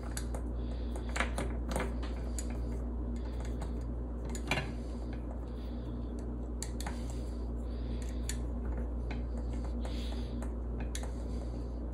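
Small metal clicks and light scrapes of a ball-end Allen key turning a small screw, fastening a filament runout detector to its metal mounting plate, irregular ticks over a steady low hum.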